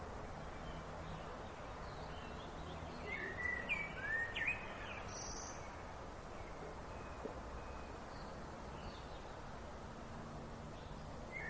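Outdoor woodland ambience with steady background noise and a songbird singing a short phrase of quick chirping notes about three to four and a half seconds in, followed by a brief higher call.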